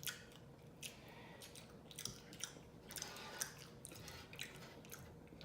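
A person chewing food with wet, smacking mouth noises: a string of short, irregular smacks and clicks.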